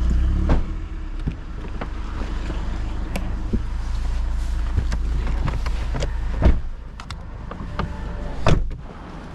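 A low vehicle rumble with scattered clicks and knocks. A sharp knock comes about six and a half seconds in, after which the rumble drops, and another knock comes about two seconds later.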